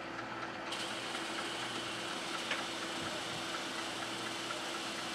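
Steady machine hum from the room's running fog and lighting equipment, with a constant low tone. An even hiss comes in sharply about a second in and holds.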